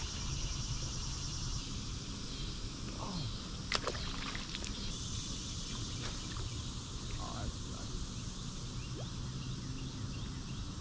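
Outdoor evening ambience by a river: a steady high insect drone over a low rumble, with one sharp click about four seconds in and a couple of faint short calls.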